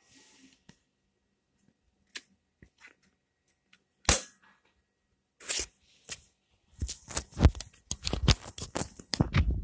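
Scattered sharp clicks and knocks of handling noise: a few isolated ones, a loud knock about four seconds in and another a second and a half later, then a quicker run of clicks. A low rubbing rumble starts near the end, as of hands moving over the phone near its microphone.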